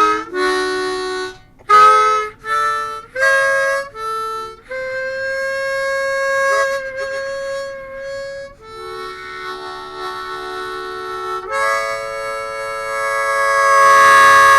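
Blues harmonica playing: a few short chord stabs, then a long held note, then a long held chord that swells to the loudest point near the end.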